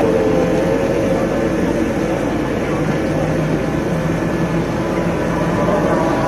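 Motorboat engine running steadily, with a constant low hum under a noisy rush.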